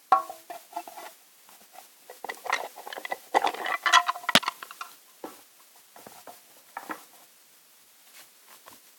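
Trading cards being handled and slid about on a wooden table: a run of close scrapes, rustles and light taps, busiest in the middle, with one sharp tap a little after four seconds in.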